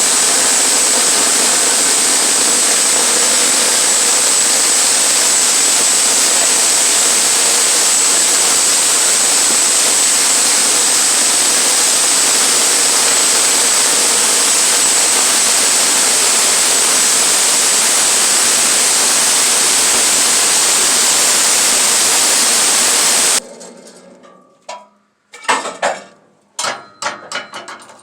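Sawmill running steadily through a cut, an even hiss with a thin high whine. It stops abruptly a little before the end, and a few light knocks and clatters follow.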